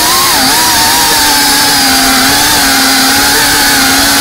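FPV drone's electric motors and propellers whining loudly, the pitch wavering up and down with quick throttle changes at first, then holding nearly steady.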